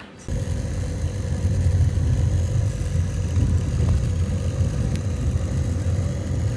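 A motor vehicle's engine running close by: a loud, steady low rumble with a faint steady whine above it, starting suddenly.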